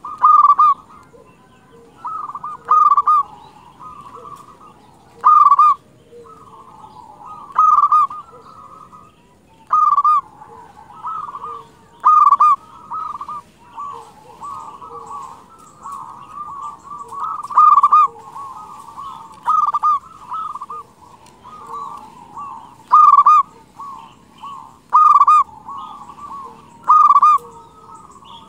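Local perkutut (zebra dove) cooing repeatedly and freely: a loud call about every two to two and a half seconds, with softer cooing filling the gaps between.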